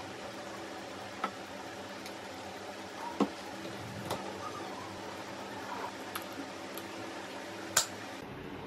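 Hard plastic parts of a baby bottle sterilizer clicking and knocking as they are handled and fitted together: about five sharp clicks, the loudest near the end, over a steady background hum.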